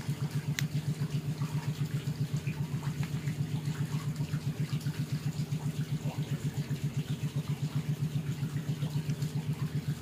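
Washing-machine spin-dryer motor humming steadily with a fast, even pulsing throb, powered on its mains winding without a capacitor while its rotor stays stalled and not yet turning.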